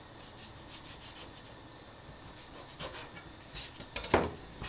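Knife trimming lemon slices on a plastic cutting board: faint scraping with a few small taps, then a couple of sharper knocks near the end as the knife is set down and the pieces handled.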